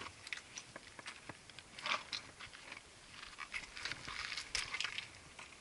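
Footsteps of a hiking shoe on loose stone rubble and gravel, crunching and scraping in irregular steps, louder about two seconds in and again near the end.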